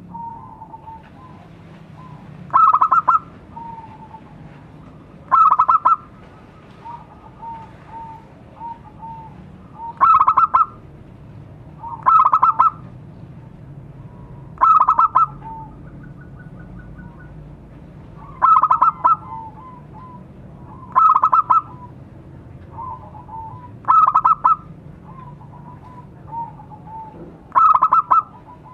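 Zebra dove (perkutut) cooing: a loud short rapid call repeated every two to five seconds, with fainter short coos between the loud calls.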